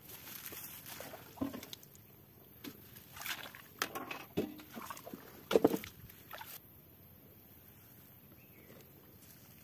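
Water sloshing around a small wooden boat, with scattered knocks and rustles over the first six seconds or so, the loudest a little past halfway, then settling to a low hush.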